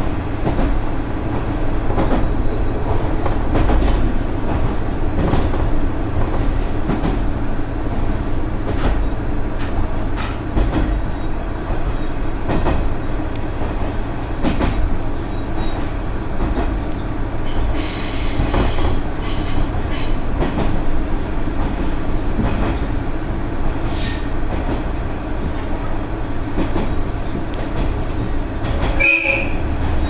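Inside a diesel railcar under way: a steady rumble of engine and wheels on the rails, with scattered clacks from the track. A high wheel squeal rings out about two-thirds of the way through.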